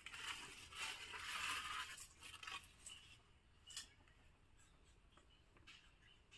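Faint rasping, tearing noise for about a second, starting just under a second in, then a few soft clicks: a rhesus macaque chewing and stripping a stalk of sugarcane.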